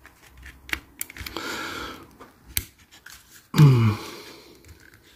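Plastic body of a Hornby Bulleid Pacific model locomotive clicking and cracking as it is forced down over the chassis, with a few sharp clicks and a brief scrape. About three and a half seconds in comes a man's short low grunt, falling in pitch.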